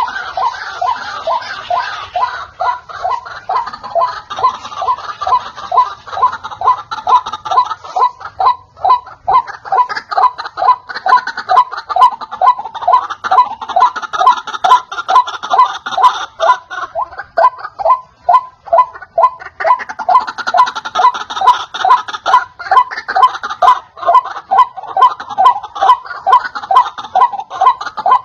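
White-breasted waterhen (ruak-ruak) calling: a long unbroken run of repeated notes, about two a second.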